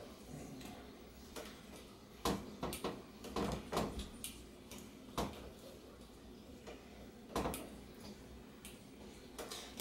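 Scattered light clicks and knocks, about eight over several seconds, from hand work on a bicycle suspension fork: its plastic top caps being pushed down against the springs and threaded into the crown.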